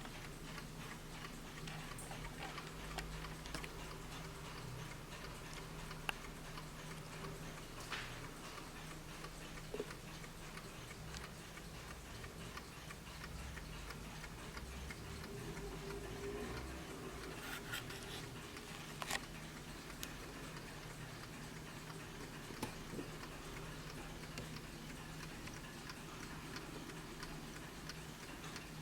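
Vintage Warmink WUBA mantel clock's clockwork movement ticking steadily and softly, with a few louder clicks standing out.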